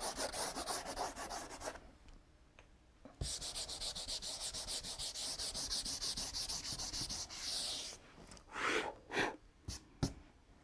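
A hand rubbing soft pastel into paper to blend the colours, in quick back-and-forth strokes. The rubbing stops for a moment about two seconds in, starts again, and near the end turns into a few separate strokes.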